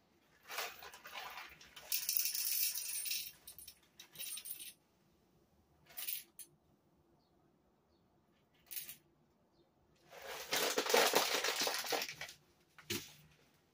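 Whole coffee beans poured from a coffee bag into a small metal dosing cup on a scale, in several goes: a long rattling pour, a couple of short trickles, then another long pour, with the bag rustling.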